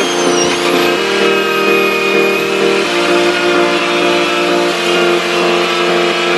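Angle grinder with an abrasive wheel working rust off the steel chassis frame of a Land Rover Defender: a steady high whine with a grinding hiss.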